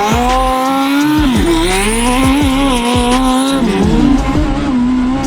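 Turbocharged mini truck engine revved hard and held at high rpm, dipping briefly about a second in and climbing back, with a high turbo whistle rising over it. Tyre noise from a boosted burnout runs underneath in the middle.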